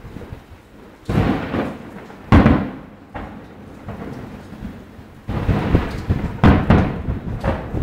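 Aerial fireworks shells bursting: five deep booms, each dying away over about a second, the loudest about two and a half seconds in.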